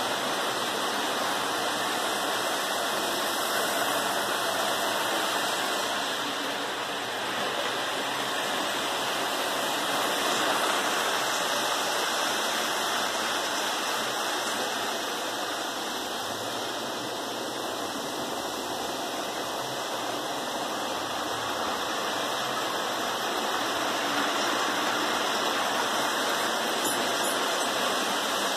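Several electric model trains running on the metal track of a layout at close range: a steady rushing rumble of wheels and motors that rises and falls a little as the cars pass.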